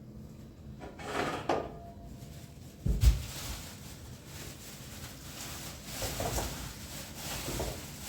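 A heavy knock of something wooden or solid being set down or shut, about three seconds in, among scraping and rubbing handling noises.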